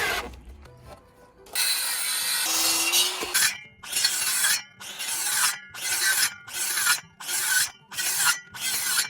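Hand saw cutting through timber: a long first stroke, then a steady rhythm of about eight back-and-forth strokes, each roughly half a second long. A brief power-tool sound cuts off just at the start.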